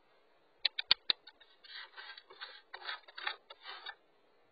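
A cat's paw striking the camera: four sharp taps in quick succession about half a second in, then about two seconds of scraping and rubbing against the device.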